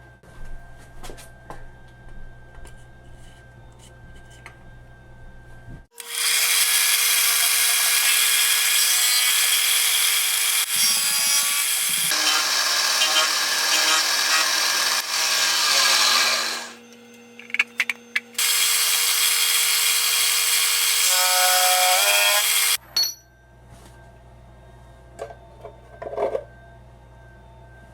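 Power tool running under load on a workpiece: a harsh, loud rasping that starts suddenly about six seconds in and runs for about ten seconds. After a short break it runs again for about four seconds, then cuts off.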